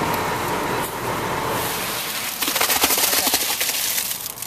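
Wet concrete tipped from a wheelbarrow into a drilled pier shaft: a gritty, crackling rush of concrete sliding and scraping out, starting about two seconds in and lasting about a second and a half.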